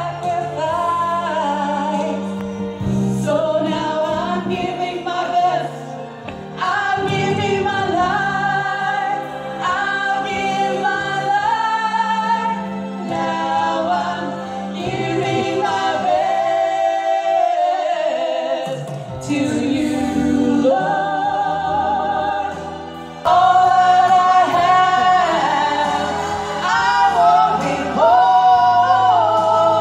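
Two women singing a gospel song as a duet, with held sung notes over a sustained low instrumental accompaniment.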